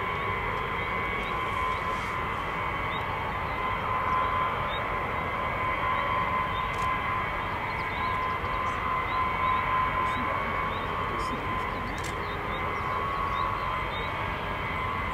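Aircraft turbine engines running at low power on the ground: a steady rushing noise with a high, steady whine over it.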